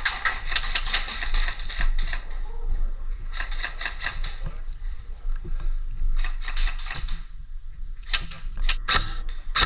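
Airsoft guns firing in several rapid bursts of sharp clicking snaps, the longest near the start.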